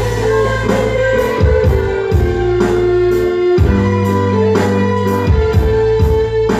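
Live band playing an instrumental passage: plucked strings and keyboard notes over a steady drum beat.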